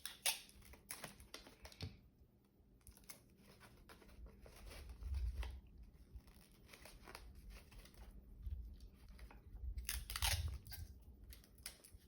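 Pieces of thin tape being pulled and torn from the roll, and construction paper crinkling as it is taped over the open end of a cardboard paper towel roll. The sound comes as irregular short rips and rustles, with a few dull handling bumps.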